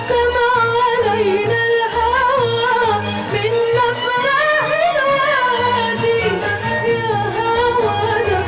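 Background music: a voice singing a wavering, ornamented melody over a steady low drum beat.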